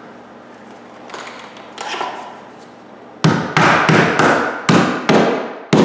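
Hammer nailing metal bullnose corner bead onto drywall at the top of an opening. About three seconds in comes a quick run of roughly ten sharp blows, about three a second, after a few faint knocks.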